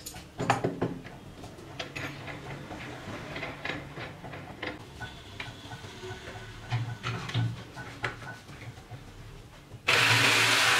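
Scattered clicks and knocks as an electric jigsaw is handled and set onto its metal guide track. Near the end the jigsaw is switched on, and its motor and reciprocating blade run loudly and steadily.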